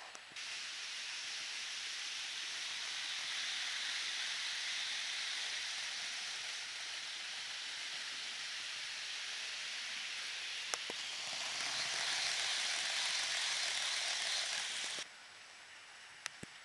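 Roco model electric locomotive and its container wagons running along the track close by: a steady rushing whir of motor and wheels on the rails. It cuts in abruptly, grows louder near the end, and cuts off sharply. A single sharp click sounds about eleven seconds in.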